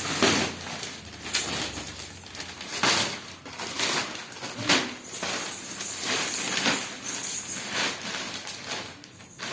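Packaging on a new dishwasher being handled and pulled off during unboxing: irregular rustling with scattered knocks and scrapes.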